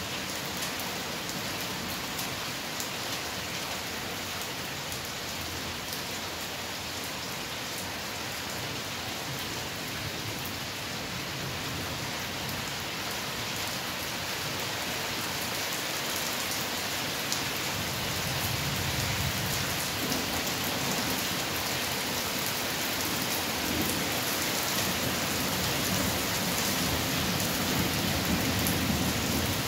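Steady heavy rain falling on surfaces, with individual drops clicking close by. In the second half a low rumble of thunder rolls in and grows louder toward the end.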